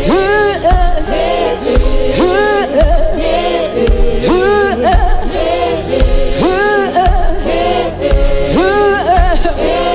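Gospel worship music: a voice sings long arching phrases that rise and fall, over a band with a deep beat about once a second.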